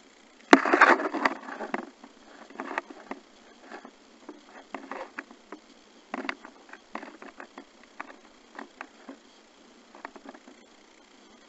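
Underwater sound picked up through a Polaroid Cube+ camera's sealed waterproof case: a sharp knock about half a second in, then a second of crackling rustle, then scattered clicks and taps.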